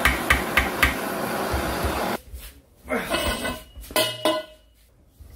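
Quick hammer taps on the rusty steel jackhammer body, about four a second, over the steady hiss of a gas blowtorch flame, as the seized part is heated to work it loose. About two seconds in this stops and gives way to scattered ringing metal clinks and a clunk as a large pipe wrench is set on the part.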